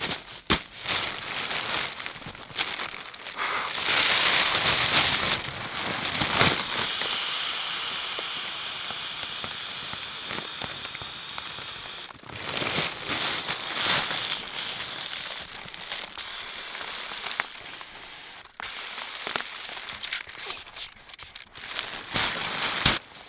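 Crinkling and rustling of a plastic ground sheet and sleeping pads being handled and spread out. Bursts of airy whooshing come as a pump sack is pressed down to inflate a Therm-a-rest NeoAir XTherm air pad.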